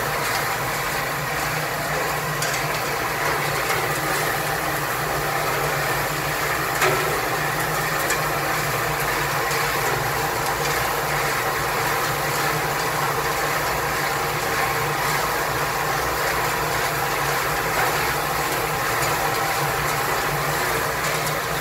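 Drum-type nut roasting machine running steadily: a continuous motor hum with the noise of kernels tumbling in the turning drum as the cross-shaped agitator stirs them.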